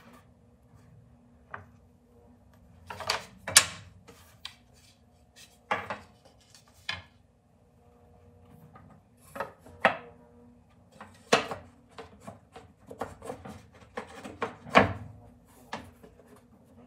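Wooden tray parts being dry-fitted together by hand: scattered knocks and taps of wood on wood, with some rubbing and sliding, the loudest in small clusters of two or three.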